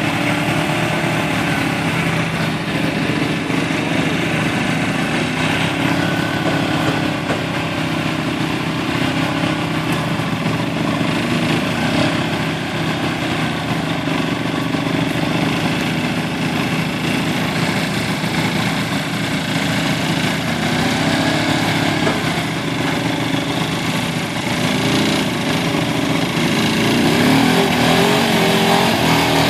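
ATV engine running steadily while it tows a boat on its trailer across grass, getting a little louder near the end.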